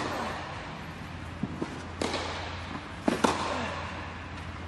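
Tennis ball being hit and bouncing in a rally: sharp pops of the racket on the ball, about two seconds in and twice in quick succession a little after three seconds, echoing in the covered indoor hall over a steady low hum.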